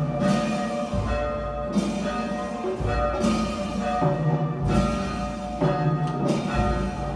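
Church bells tolling the requiem knell that announces a death and calls for prayer for the departed's soul. A heavy low stroke comes about every two seconds, each ringing on, with higher bell strikes in between.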